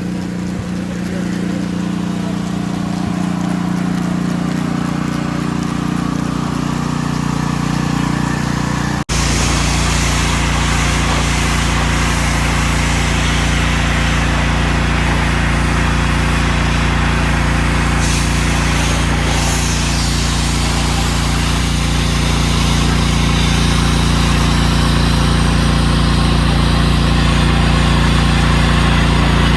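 Pressure washer running steadily with its spray hissing, with a change in the sound about nine seconds in.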